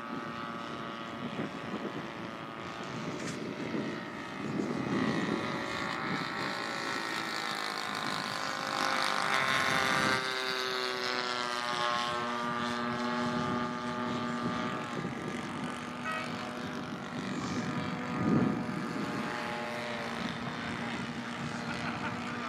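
Engines and propellers of several scale WW1 model aircraft droning in flight, the pitch of each rising and falling as the planes pass, with one sliding down about ten seconds in. A low rumble comes through briefly twice, about five and eighteen seconds in.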